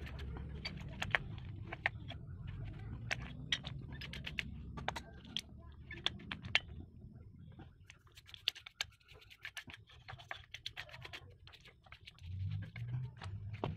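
Irregular small clicks, taps and scrapes of hand tools and metal parts being handled on a brush cutter's two-stroke engine during cleaning, over a low background rumble that fades out about halfway through and comes back near the end.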